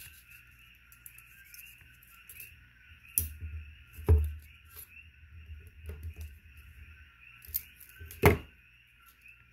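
Hand tools handled on a wooden table while a tag end of titanium wire is cinched: scattered knocks and clicks, the loudest about four and eight seconds in. A steady high-pitched hiss runs underneath.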